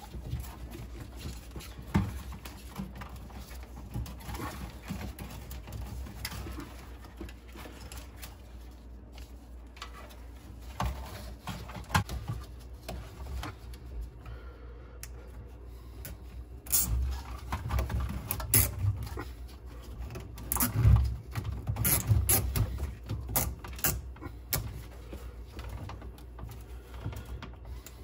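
Gloved hands fastening a plastic bilge pump down with zip ties among hoses and wires: scattered clicks, rustles and knocks, busiest and loudest past the middle.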